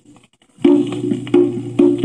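A 1964 folk-pop single playing from a 45 RPM vinyl record on a turntable. A brief quiet stretch of lead-in groove comes first; about half a second in, the instrumental intro starts, with a steady low note and regular sharp percussive strikes.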